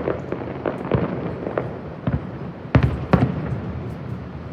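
Fireworks going off overhead: a run of sharp bangs, the loudest two about three seconds in, with a low rumble between them.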